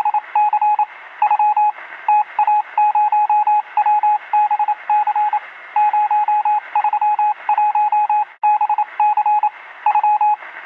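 Electronic beeping: a single steady high-pitched tone switched on and off in quick runs of short and longer beeps, over a faint hiss.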